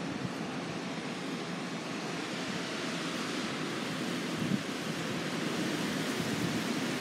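Storm wind and rain heard through a window as a steady rushing hiss, slowly building a little toward the end.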